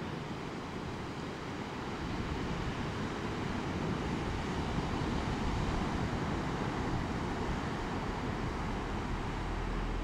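Surf breaking on an ocean beach, mixed with wind on the microphone: a steady rushing noise that grows a little louder about two seconds in.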